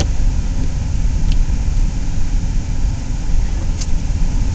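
Car driving, heard from inside the cabin: a steady, loud low rumble of engine and road noise.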